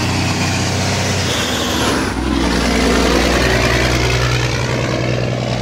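Heavy dump truck's diesel engine pulling hard as it drives past close by, the exhaust puffing dark smoke under load. The engine note changes about two seconds in, with a brief dip in loudness, then grows louder as the truck goes by.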